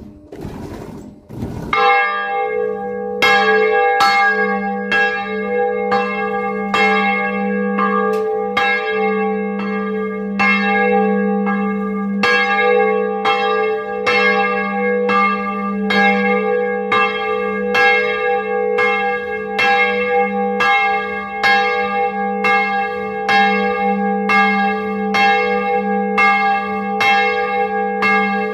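Bronze church bell cast in 1658 and tuned to G sharp, ringing in steady strokes of its clapper, about three every two seconds, each stroke's hum carrying over into the next. A few low knocks come before the first stroke, about two seconds in. Heard close up from inside the belfry.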